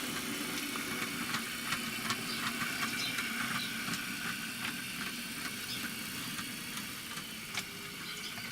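Model railway train running along the track: a steady small electric motor hum with many irregular clicks of wheels over rail joints.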